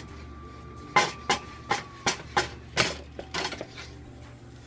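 A spoon knocking and scraping against a cooking pot as stiff fufu dough of plantain and cocoyam flour is stirred in it, about nine irregular strokes starting about a second in.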